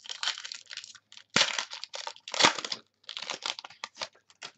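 Plastic crinkling and rustling as trading cards in clear plastic sleeves are handled, with two louder crackles about one and a half and two and a half seconds in.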